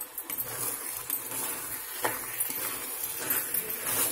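Chicken pieces frying and sizzling in sauce in a pan while a metal slotted spatula stirs them, with a few clinks and scrapes of the spatula against the pan.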